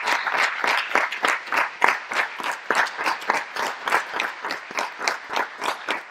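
Audience applauding, a dense patter of many hands clapping that thins and grows quieter toward the end.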